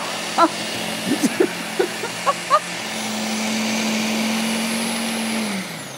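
Countertop food processor motor running with a steady hum, winding down near the end as it is stopped.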